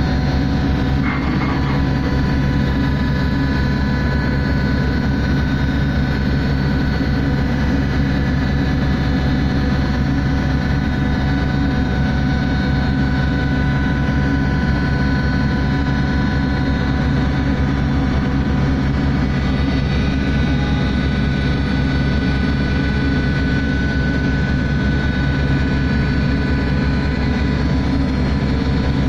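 Survey ship's engines and deck machinery running steadily: a loud, even low drone with a few constant high whining tones on top.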